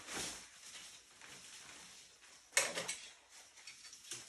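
A folded fabric chest rig being handled and unrolled: soft rustling and scuffing of nylon, with one sharp, louder handling noise about two and a half seconds in.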